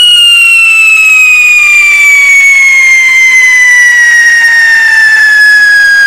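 Large ground firework fountain spraying sparks with a loud, unbroken whistle that slowly falls in pitch.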